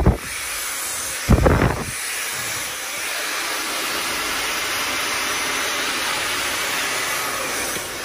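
Laifen Swift high-speed hair dryer blowing steadily as it dries long hair, a constant rushing hiss. A brief low rumble of air buffeting the microphone comes about a second and a half in.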